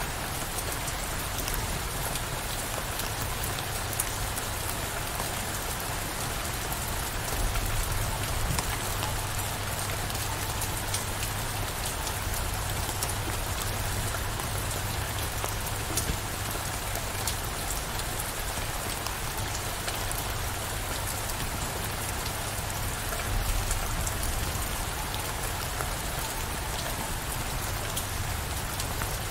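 Steady rain downpour, with many individual drops ticking sharply on a surface.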